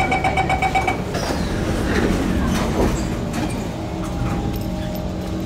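Metro train's door-closing warning, a rapid two-tone beeping, stops about a second in. Then come knocks and rattling as the doors shut and the train moves off, with a steady whine from its traction motors building in the second half.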